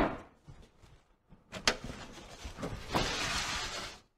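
Metal bread tins being set into a bakery deck oven: a sharp clack at the start, another knock about a second and a half in, then a steady rushing noise for about a second near the end.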